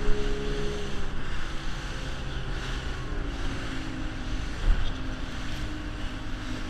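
Motorboat running at speed through chop: a steady engine drone under rushing spray and wind on the microphone, with a sharp thump about four and a half seconds in.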